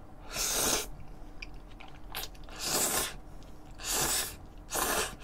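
Tomato spaghetti noodles being slurped in from chopsticks: four short, noisy sucks about a second apart.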